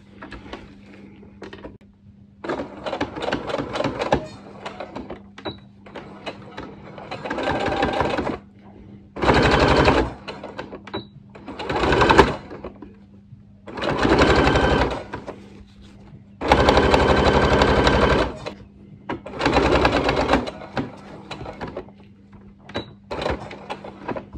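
Electric domestic sewing machine stitching through the layered cotton and elastic of a face mask. It runs in short bursts of a second or two and starts and stops about seven times, with quieter handling clicks between the runs.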